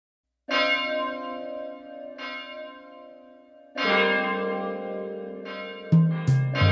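Bell tones struck four times, about every second and a half, each ringing out and fading, as the intro of a song. Near the end, low instrumental notes come in as the accompaniment starts.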